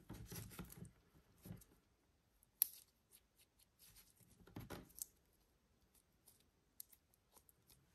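Faint handling noise of gel-filled Nee Doh gummy bear squishy toys being picked up, set down and squeezed by hand: scattered soft taps and rubbing, with one sharp click about two and a half seconds in and a louder rustle a little past halfway.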